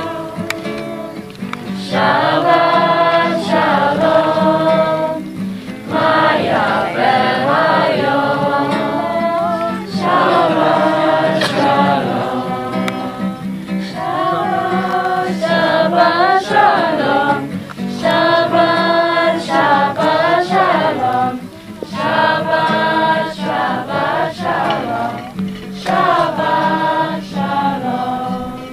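A group of voices singing a song together, in phrases with short breaks between the lines.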